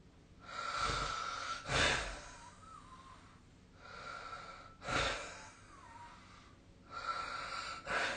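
A person snoring in sleep: three breaths about three seconds apart, each a raspy stretch with a high whistling note running through it that ends in a short, louder burst.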